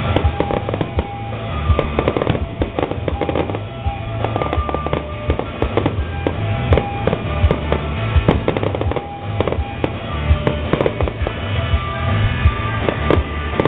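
Aerial fireworks shells bursting in a rapid string of sharp bangs and crackles, with music playing underneath.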